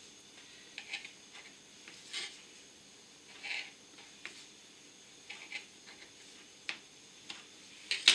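Soft, scattered scrapes and rustles of a knife cutting square centres out of slices of sandwich bread, with plastic-gloved hands handling the slices. A louder brief noise comes near the end.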